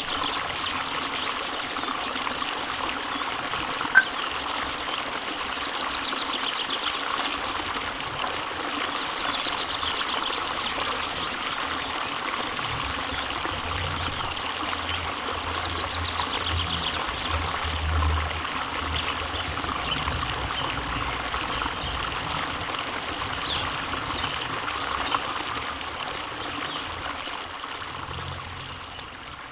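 Steady trickling, running water that eases off near the end.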